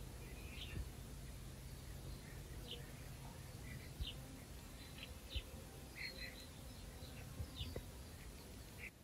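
Small birds chirping, short scattered calls one after another, faint over a low background rumble. Two soft knocks come about four and five and a half seconds in.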